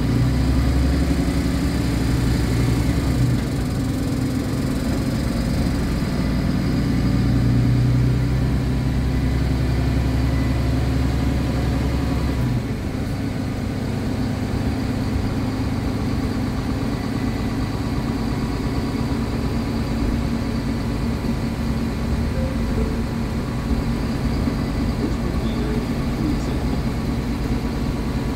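Diesel engine of a 2015 MAN A20 Lion's City Ü city bus idling while the bus stands still, heard inside the passenger cabin. The deep drone steps down in level about twelve seconds in and then runs on steadily.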